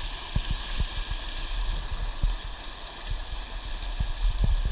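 Shallow river water running and gurgling steadily, with a steady low rumble and irregular soft low thumps on the microphone.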